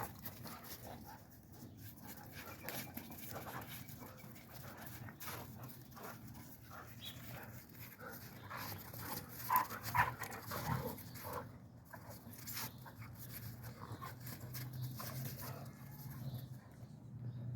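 Dogs panting and scrambling about in snow, with two sharper, louder sounds about ten seconds in.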